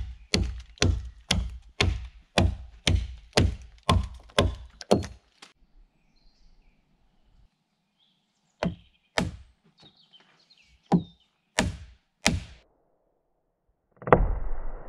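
A wooden peg being driven into a log with the back of an axe head: a steady run of sharp knocks about two a second, then a pause and several slower single blows. Near the end, a heavier thud with a noisy tail that fades over about two seconds.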